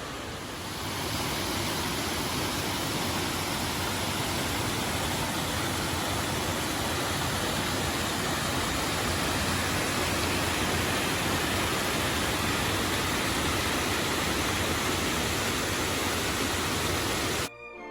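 Steady rushing water, like a waterfall or fast mountain creek, an even hiss with no pitch that swells about a second in and cuts off abruptly near the end.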